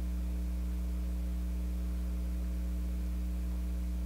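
Steady low electrical hum with its overtones, unchanging throughout; no other sound stands out.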